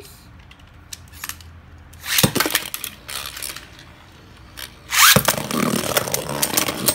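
A Beyblade Burst spinning top is launched into a plastic stadium about two seconds in, clattering down, then spinning and grinding over the plastic floor with a rattle of small clicks. About five seconds in, a louder run of clattering and scraping takes over.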